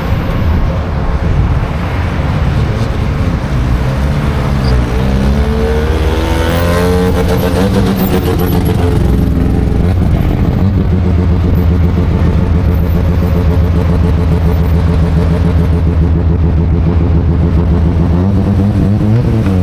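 Rotary-engined car running loud, its revs rising and falling over the first several seconds, then held at one steady note for about ten seconds.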